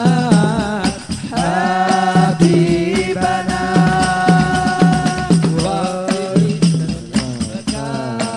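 Men's voices singing an Arabic devotional song, with long held notes, over a steady rhythm of hand-struck frame drums (rebana) and a large bass drum: a hadrah ensemble.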